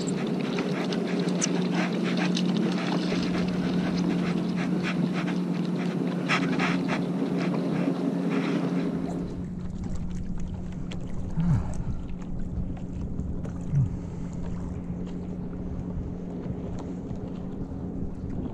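Small waves lapping against a paddleboard, with wind on the microphone and a steady low hum. The sound turns duller about nine seconds in, and two short knocks follow.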